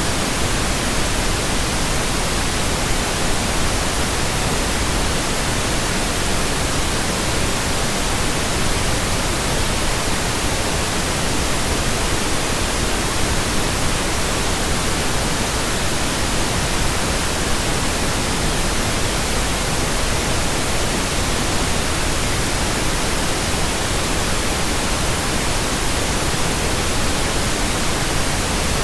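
Synthetic pink noise: a steady, unchanging hiss spread evenly across all pitches, with no tones or breaks.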